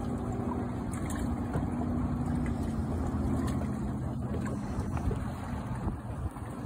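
A boat motor runs steadily at idle, a low even rumble, over wind and water noise. A few faint knocks sound as hands work inside the bass boat's livewell.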